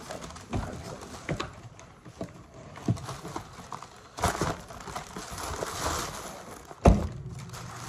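Thin plastic carry-out bag rustling and crinkling as a takeout order is unpacked by hand, with scattered light knocks and one louder thump about seven seconds in.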